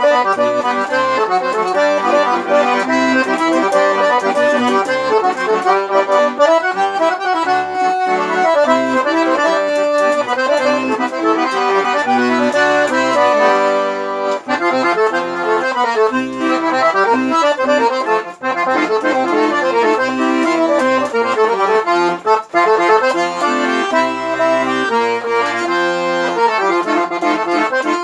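Accordion (sanfona) playing a lively instrumental forró, a quick-moving melody over repeated bass notes.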